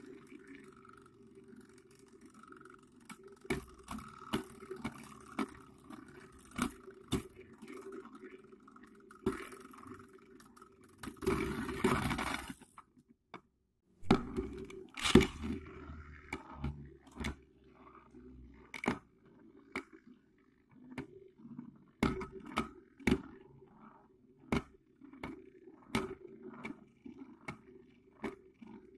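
Spinning tops whirring in a plastic dish, with a steady hum and many sharp clacks as they hit each other and the rim. About eleven seconds in there is a loud rush of scraping and rattling while a hand is in the dish. After a brief silence, a new battle starts with more clacks.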